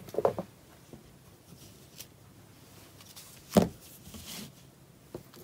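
Handling noise as rolls of washi tape are sorted: a few light clacks just after the start, then one sharper, louder knock about three and a half seconds in.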